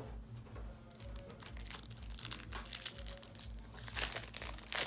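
Foil wrapper of a Pokémon card booster pack crinkling and tearing as it is opened by hand: scattered crackles, with a louder burst of crinkling about four seconds in.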